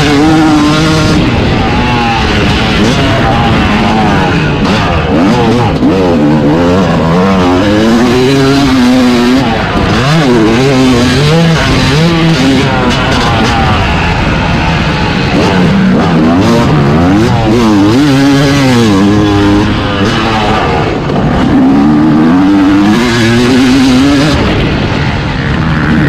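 Yamaha YZ250 two-stroke motocross engine ridden hard. The revs climb and drop again and again every second or two as the throttle is worked and gears change.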